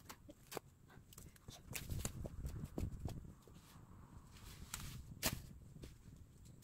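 Irregular rustling and crackling of garden plants and weeds being handled close by, with scattered sharp clicks and low thumps, the loudest click about five seconds in.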